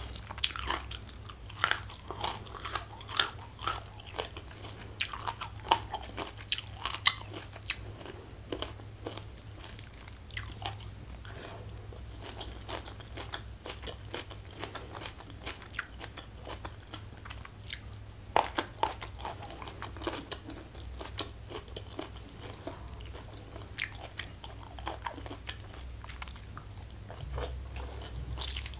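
A person chewing and crunching food close to the microphone, with sharp crisp bites and wet mouth clicks. The crunching is busiest in the first several seconds and again about two-thirds of the way through.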